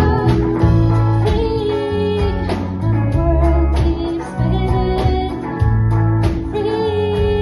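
Live band performing: a woman singing over electric guitar, bass guitar and drums.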